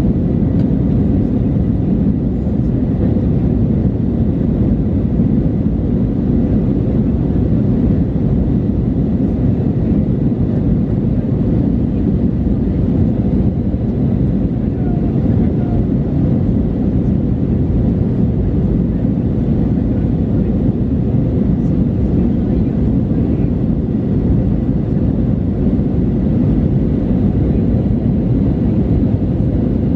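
Steady low rumble inside the cabin of an Airbus A319-112 climbing after take-off: its CFM56 engines and the air rushing past the fuselage, with no change in level.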